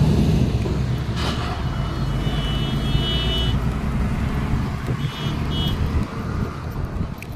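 Road traffic with a loud wind-like rumble on the microphone from moving along the road. A high steady beeping tone sounds for about two seconds beginning about a second in, then twice more briefly around five seconds in.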